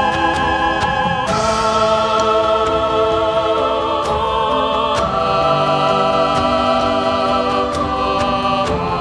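Background music of choir-like voices holding sustained chords with vibrato, the chord changing about a second in and again around five seconds in.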